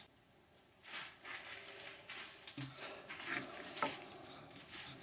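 Faint handling noises: a hand brushing and rubbing against a wooden bowl held in a stopped lathe's chuck, with a sharp click about four seconds in.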